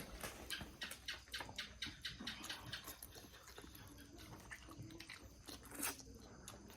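A person chewing noodles close to the microphone: soft, wet mouth clicks and smacks come several a second at first, then thin out, with one sharper click near the end.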